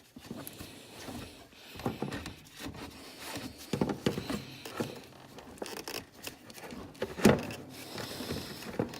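Irregular scraping, rubbing and clicking of a wrench working the drain bolt out of an ATV's transfer case, with a sharper knock about seven seconds in.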